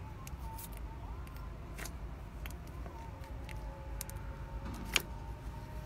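Fingers pressing and scooping thick slime in a small plastic tub, giving scattered wet clicks and small pops, the sharpest about five seconds in, over a steady low rumble.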